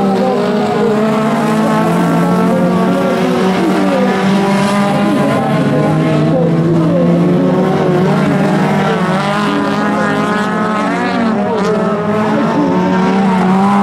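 Several autocross race cars' engines running hard on a dirt track, their overlapping engine notes rising and falling as the drivers rev up and lift off.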